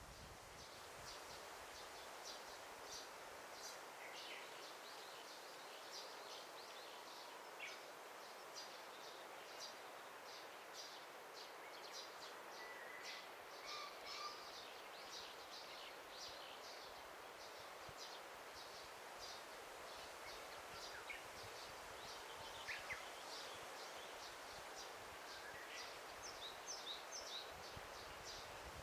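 Daytime forest ambience: a steady soft hiss with many small birds chirping and calling, short high notes coming all the way through.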